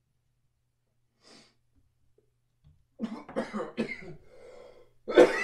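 A man coughing hard on a hit of hash vapour from a water pipe: three quick coughs about three seconds in, a drawn-out throaty sound, then a louder cough near the end.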